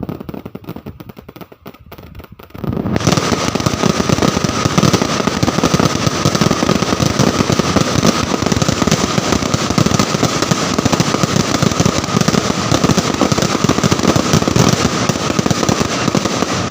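Aerial fireworks going off in a dense, continuous barrage of crackles and bangs, quieter for the first few seconds, then loud and sustained from about three seconds in.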